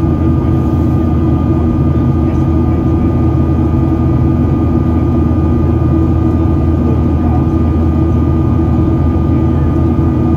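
Steady in-flight cabin drone of a Boeing 737-800 heard from a window seat over the wing: a deep rumble of its CFM56-7B turbofan and the airflow, with a thin steady whine running through it.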